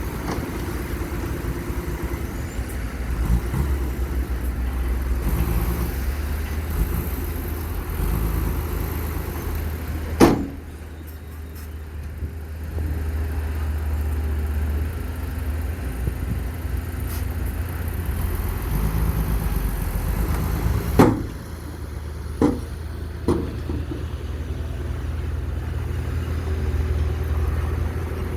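Radio-controlled model construction machines (dump trucks and a bulldozer) running with a steady engine-like drone, broken by a few sharp knocks.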